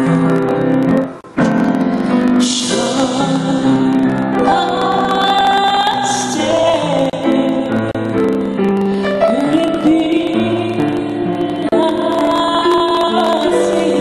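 A woman singing into a microphone, accompanied on an upright piano. The sound drops out briefly about a second in.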